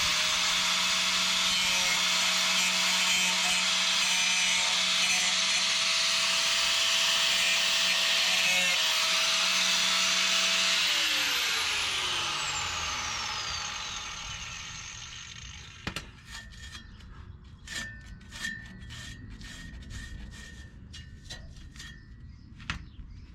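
Angle grinder running on the exhaust metal, a steady whine with the hiss of the disc against metal, then winding down with falling pitch about eleven seconds in. After it stops, a few light taps and clicks of handling.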